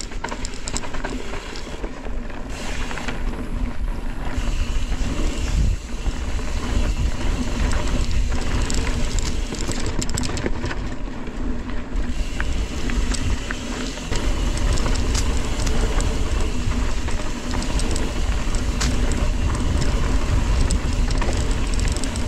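Mountain bike ridden fast down a dirt trail: steady wind rumble on the microphone with tyre noise, and frequent short clicks and rattles from the bike over bumps.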